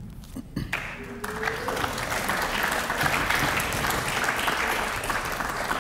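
Theater audience applauding at the end of a poem, the clapping starting just under a second in, swelling quickly and holding steady.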